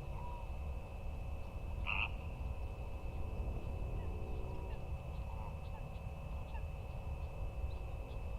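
Wetland ambience: a steady low rumble under a continuous thin high tone, with one short animal call about two seconds in and a few faint chirps after it.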